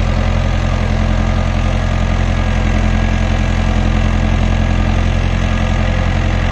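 Mahindra Arjun Novo 655 tractor's diesel engine running steadily under load while pulling a mouldboard plough through the soil.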